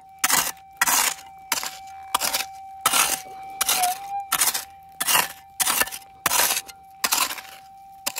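Hand pick chopping into hard red clay and caliche, with repeated crunching strikes about two a second. Under them runs a steady high tone from a metal detector's threshold, which wavers briefly about four seconds in.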